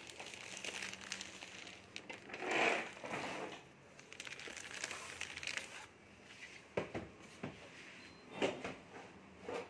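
Clear plastic wrap crinkling and rustling as it is handled, loudest about two and a half seconds in, with a few sharp clicks or knocks in the last few seconds.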